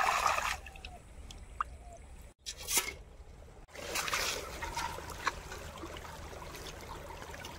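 Muddy ditch water sloshing and trickling as hands grope in it for field crabs, loudest in the first half-second. After a cut, a steady rustle of grass and paddy plants brushed in passing.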